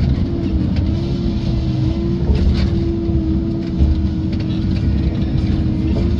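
Tigercat tracked feller buncher's diesel engine and hydraulics running steadily under work, heard from inside the cab: a constant hum over a dense low rumble, with a few light knocks.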